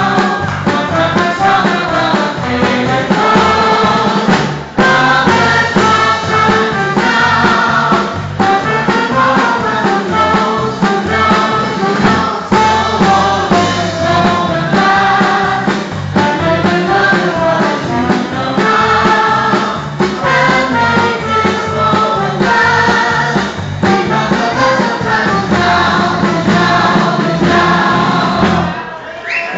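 A group of voices singing a song together over an instrumental backing with a steady beat. The music stops about a second before the end.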